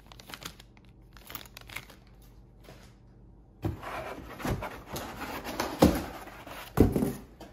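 Faint crinkling of a plastic zip bag, then a moulded paper-pulp packing insert scraping and knocking against a cardboard box as it is pulled out, with four louder bumps in the second half.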